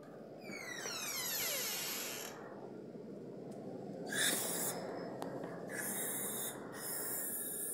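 A door swinging open with a falling creak of about two seconds, then steady outdoor background noise with a short louder rustle about four seconds in.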